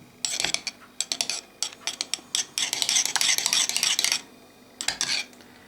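A spoon stirring liquid soft-lure silicone in a cup, clinking and scraping against the container. It comes in short bursts, with a longer spell of continuous scraping near the middle.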